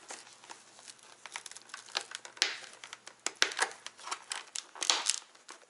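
Rustling and crinkling of a padded helmet liner being handled and pressed into the helmet shell, broken by several sharp clicks.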